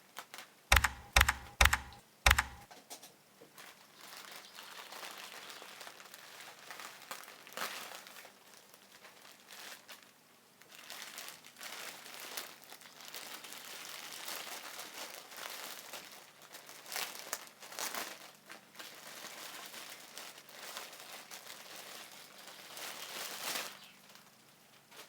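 Packaging being handled and unwrapped, crinkling and rustling on and off for most of the time. It starts with four sharp knocks in quick succession about a second in.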